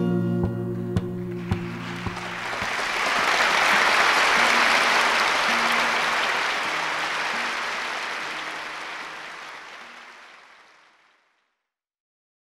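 An acoustic guitar song ends with a few last plucked notes, then audience applause from a live recording swells up and fades out by about eleven seconds in.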